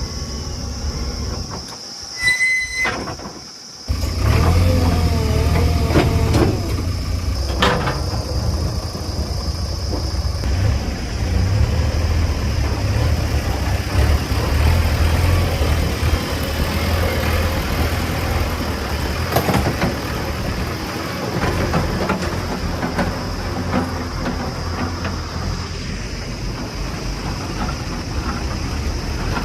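JCB 3DX backhoe loader's diesel engine running under load, louder from about four seconds in. High metallic squeals from the working arm and bucket come through, one brief squeal shortly before and several wavering ones just after.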